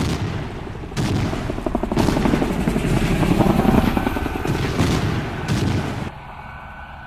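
Explosion booms at the start and about a second in, then an attack helicopter's cannon firing fast for a few seconds over the sound of its rotor. Near the end the gunfire stops and only the helicopter's engine and rotor keep running, quieter.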